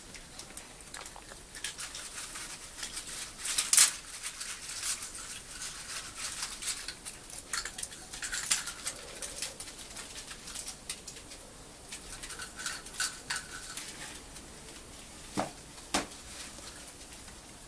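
Small dogs playing on a concrete floor: claws clicking and scuffling in quick irregular patters, with a louder scuffle about four seconds in and two sharp knocks near the end.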